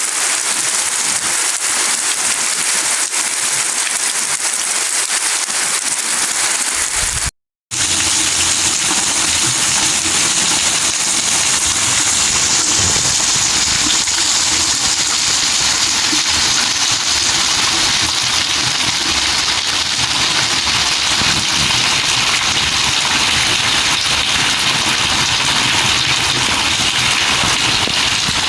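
Steady rain falling, a dense even hiss. About seven seconds in the sound cuts out for a fraction of a second, and after that a low rumble runs underneath the rain.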